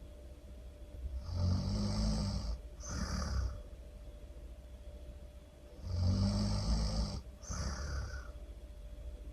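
A person snoring really loud, twice. Each snore is a long rattling in-breath followed by a shorter out-breath, about four and a half seconds apart.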